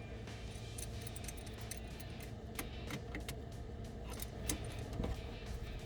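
Scattered light metallic clinks and ticks of hand tools and tie rod parts being handled and turned, over a steady low hum.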